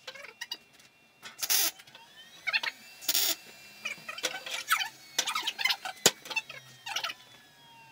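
Two short bursts of MIG welding arc hiss and crackle, about a third of a second each, as tack welds are laid on the steel frame, with a sharp click later and gliding squeaky tones in between.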